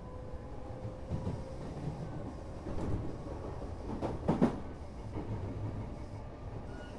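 Odakyu 8000 series electric train car, refitted with IGBT-VVVF control, running along the line: a steady rumble with wheels clacking over rail joints now and then. The loudest run of clacks comes about four seconds in.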